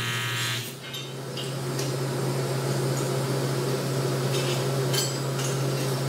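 TIG welder's arc buzzing steadily with a low hum while a bead is run on a fabricated intake manifold, with a few faint crackles. Music fades out about half a second in.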